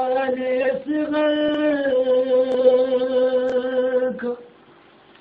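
A man's voice singing a Shia noha (lament) unaccompanied, holding two long, steady notes with a brief break about a second in, then stopping about four seconds in.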